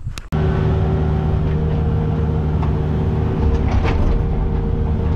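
An engine running steadily at constant speed, starting abruptly about a third of a second in.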